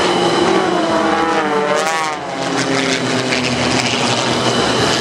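A formation of single-engine propeller aerobatic planes passing low overhead, their engines droning. The pitch rises as they approach and drops as they go by, about two seconds in.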